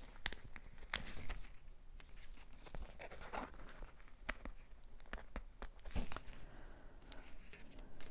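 Hands handling cardstock pieces and foam tape: scattered small taps and clicks on the work surface, with a brief rustling, tearing sound about three seconds in.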